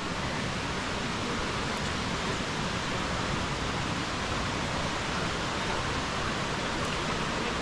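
Steady rush of falling water from a nearby waterfall, an even hiss with no breaks.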